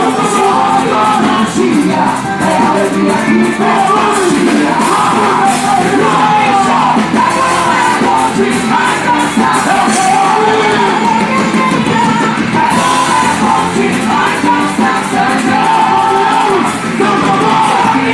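Loud music with singing over a steady percussion beat, the song of a festa junina quadrilha dance performance.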